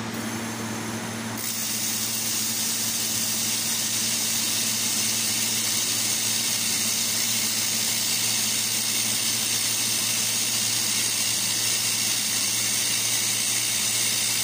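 Handheld fiber laser welding machine at work on stainless steel: a steady hiss over a low steady hum, the hiss growing brighter about a second and a half in.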